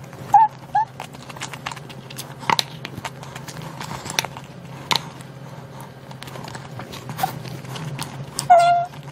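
Close-miked eating sounds: scattered wet clicks and lip smacks as meat is picked off chicken bones, with a short hummed vocal sound near the end.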